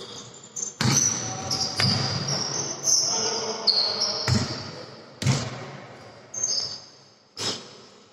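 A basketball dribbled on a hard sports-hall floor, bouncing about once a second, each bounce echoing in the hall.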